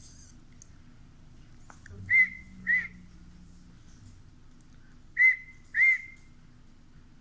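Pet cockatiel whistling: two pairs of short, clear notes, each rising and then falling in pitch, about three seconds apart.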